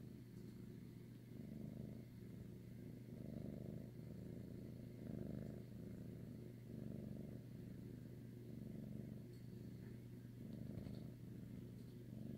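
Domestic cat purring steadily close to the microphone, the purr swelling with each breath about every second and a half to two seconds.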